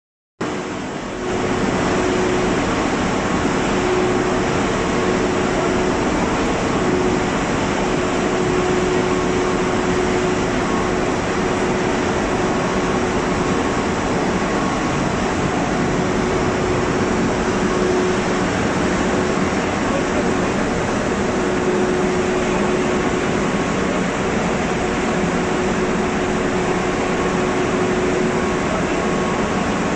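Double-girder overhead ladle crane working in a steel-mill bay: a loud, steady mechanical din with a steady hum that fades in and out.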